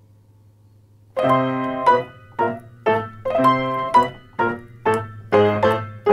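Piano playing a ragtime tune. After about a second of faint low hum, it comes in with a run of struck chords in a bouncy rhythm.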